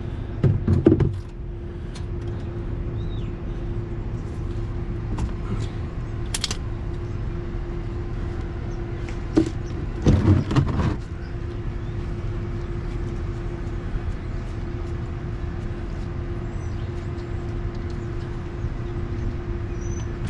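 Metal clatter and clicks of a wrench working on an engine oil drain plug, in two short spells about a second in and about ten seconds in, over a steady mechanical hum.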